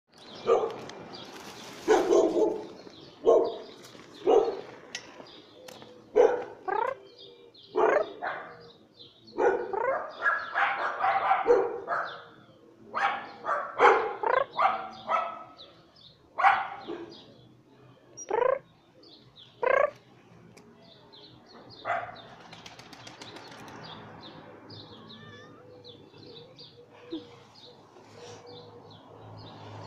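A calico cat meowing over and over: some twenty short calls, several sliding up or down in pitch, that stop about two-thirds of the way through.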